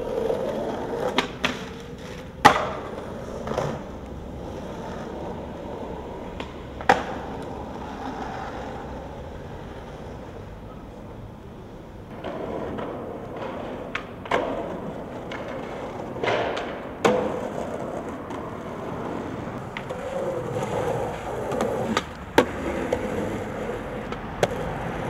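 Skateboard wheels rolling over pavement, broken by a series of sharp clacks and slaps as the board is popped and lands. The loudest hits come a couple of seconds in and about two-thirds of the way through.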